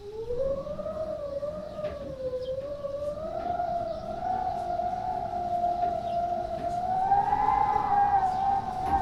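Wind whistling through the gap of a window frame: one wavering tone that starts low, then climbs unevenly and grows louder toward the end, over a low gusty rumble.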